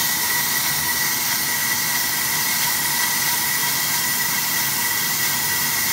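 AMMCO brake lathe turning a large brake rotor through a rough cut: a steady hissing cut with a thin, steady high whine. The cut stays even with no chatter: the rotor is hard to cut and wants to chatter, but the stable, damped tooling soaks up the vibration.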